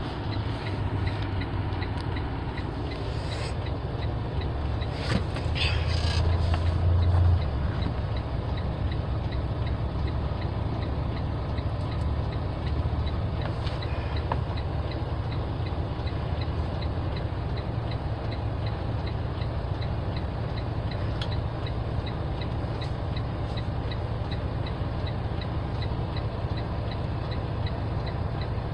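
A truck's engine idling, heard from inside the cab: a low steady rumble that swells briefly about five to seven seconds in. Over it is a faint regular ticking.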